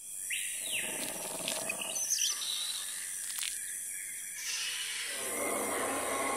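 Animal and bird-like calls, starting with a short chirp that rises and falls, over a steady high hiss; the sound grows denser about five seconds in.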